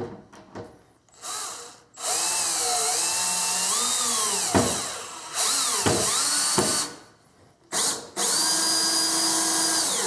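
Milwaukee cordless drill/driver running wood screws into plywood in several runs of a few seconds each. The motor's pitch sags and wavers under load and climbs when it runs free. The Phillips bit is the wrong size and spins in the screw heads, nearly stripping them.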